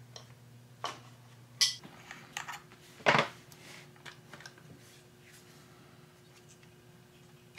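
Clicks and clacks of a large adjustable wrench, a hex nut and a small black plastic electronics box being handled as the box is taken apart and opened, with one louder clack about three seconds in. A faint steady hum runs underneath.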